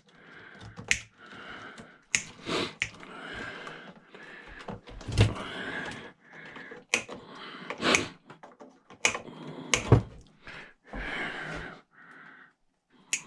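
Wire cutters snipping through the unit's internal wires: about ten sharp, separate snips spread unevenly, with rustling as the wires are handled between cuts.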